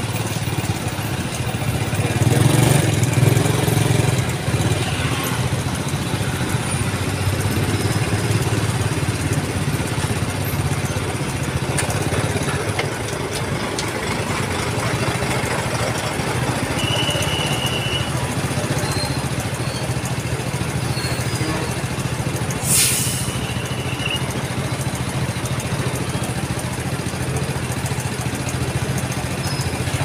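Heavy vehicle diesel engine idling steadily, with street traffic around it. A short high beep sounds twice, past halfway and about three-quarters through, and there is a brief hiss just before the second beep.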